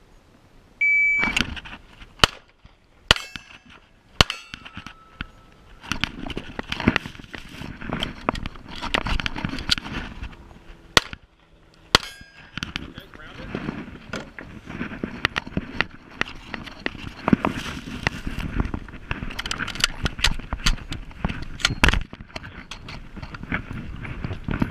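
Shot timer beep, then pistol shots about a second apart, loud and sharp. Breathing and movement noise follow as the shooter moves through the stage, with more shots later.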